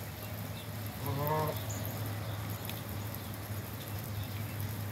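A single short call from one of the grazing waterfowl about a second in, heard over a steady low hum.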